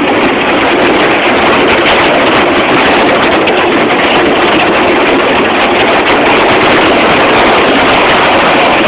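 Small metal jon boat under motor pushing through a thin sheet of ice, a loud, steady rushing and scraping of ice against the hull mixed with the motor.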